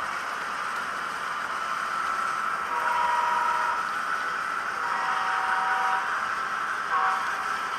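S scale model train of tank cars rolling along the track with a steady rolling noise. Over it a model diesel locomotive's horn sounds two long blasts and then a short one, the opening of the long-long-short-long grade-crossing signal.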